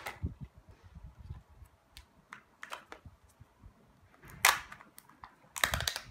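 Kinder Joy plastic egg capsule and its foil and plastic wrapping being handled: scattered crinkles and clicks, then two louder crackling spells, one about two-thirds through and one near the end, as the orange toy capsule is opened.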